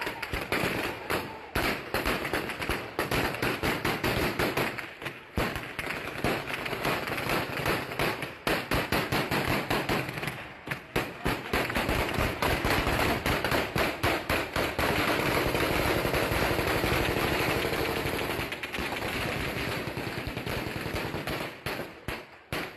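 Heavy gunfire: many shots in rapid, overlapping bursts, one run after another.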